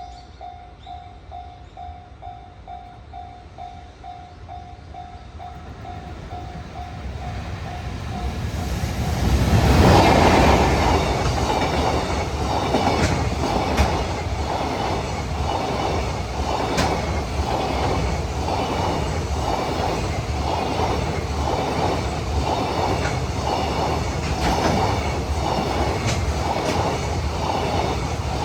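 Level-crossing warning bell dinging at about two strokes a second. About nine seconds in, a freight block train hauled by an EF210 electric locomotive arrives and passes, loudest as the locomotive goes by. The wagons follow in a steady rhythmic clatter of wheels over the rail joints.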